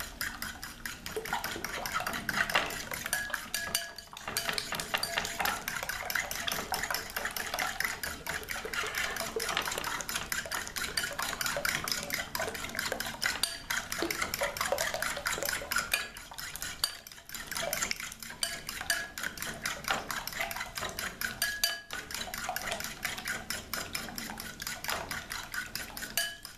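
A fork beating eggs and heavy cream in a glass bowl, clicking rapidly and steadily against the glass, with a few short pauses.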